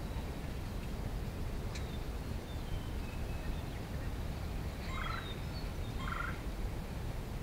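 Wild turkey gobblers gobbling twice, about a second apart near the end, over a steady low background rumble.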